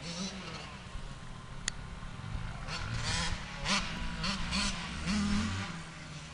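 Suzuki RM85 two-stroke motocross bike engine revving up and down as the bike rides along a dirt track, the pitch rising and falling.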